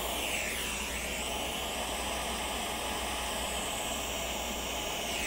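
Butane pencil torch burning with a steady hiss while it shrinks heat-shrink tubing over a wire.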